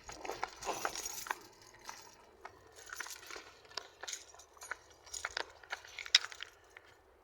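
Irregular clicking, crackling and rattling close to the microphone, as of something being handled.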